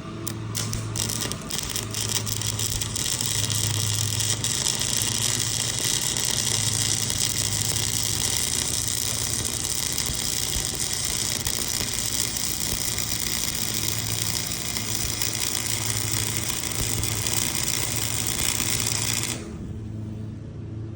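Lawn mower engine running steadily while the fitted herbicide sprayer pump runs and sprays, giving a loud high hiss over the engine. The hiss cuts off suddenly about 19 seconds in, leaving the engine running.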